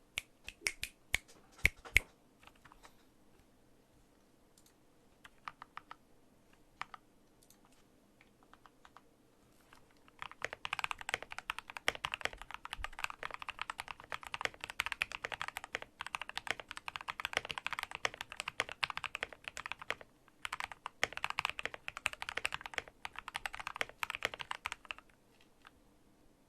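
Modded RKG68 mechanical keyboard with lubed RK red linear switches, PE foam, tempest tape mod and foamed case, being typed on: first a few separate keystrokes, then about halfway in fast continuous typing with a brief pause, stopping shortly before the end.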